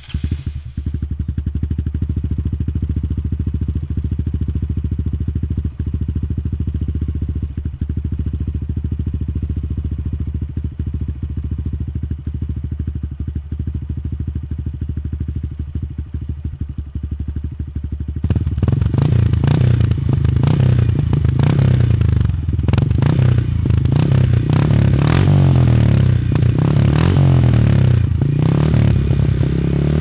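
Honda Trail 125 (CT125) single-cylinder engine running through a Yoshimura Race Straight Cyclone straight-through full exhaust, idling steadily. A little over halfway in it gets louder and the pitch rises and falls again and again as the throttle is blipped and revved.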